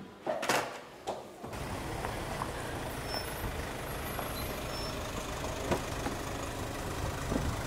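A few brief clicks, then from about a second and a half in the steady low rumble of a van's engine idling in the street.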